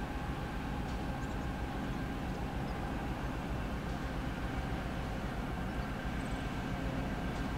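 Diesel locomotives hauling a coal train approach at a steady pace, giving an even engine drone with a few held tones.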